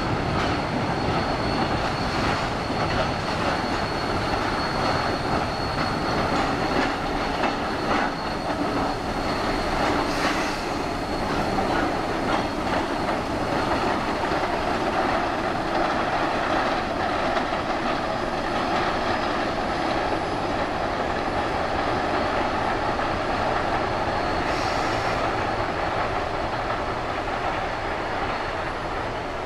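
Two Shay geared steam locomotives and their passenger cars rolling across a trestle bridge, a steady din of wheels and working locomotives. A thin high wheel squeal runs through roughly the first half.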